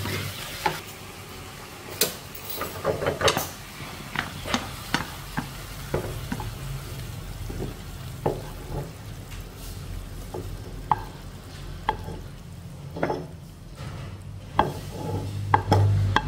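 Wooden spatula stirring and scraping stir-fried luffa and shrimp in a nonstick wok, with a light sizzle, then scraping the food out of the wok into a ceramic bowl. Irregular short scrapes and knocks throughout, over a steady low hum.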